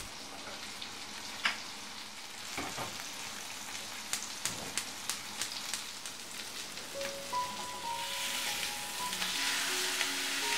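Fish slices shallow-frying in oil in a pan: a steady sizzle with scattered pops and crackles, louder in the last few seconds. Soft music with held notes comes in near the end.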